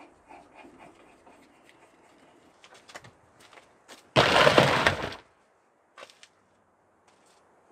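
Plastic storage tote shoved into place under a van's side step: one loud scraping rattle about a second long, after a few light handling clicks.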